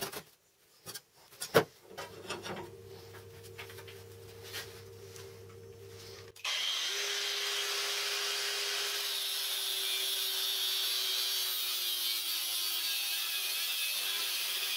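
Angle grinder spinning up about a third of the way in, then running steadily as its cutting disc grinds through a flat steel bar, its pitch sagging a little under load near the end. Before it starts, a few sharp knocks and light scratching from a steel bar being marked against a steel ruler.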